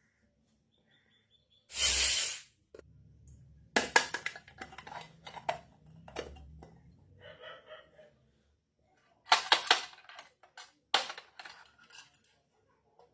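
Miniature steel toy kitchenware being handled: small pieces clink and click against each other in short clusters, with a brief rustle about two seconds in and a little metallic ringing near the middle.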